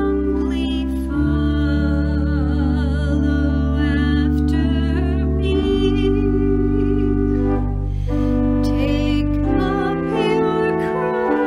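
Pipe organ playing a hymn in sustained chords over deep pedal notes, changing chord about a second in, near the middle and near the end, with a woman's voice singing the melody with vibrato.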